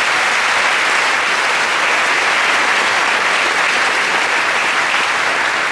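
Large audience applauding: dense, steady clapping that eases off slightly near the end.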